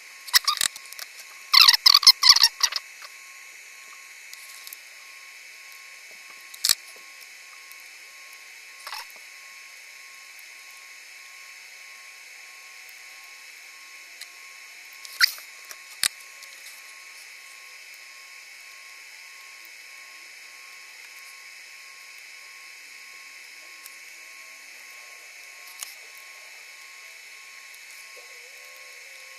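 Clicks and rattles of a circuit board being handled in a board holder, loudest in a short burst about two seconds in, then a few single clicks over a faint steady hiss with a thin high whine.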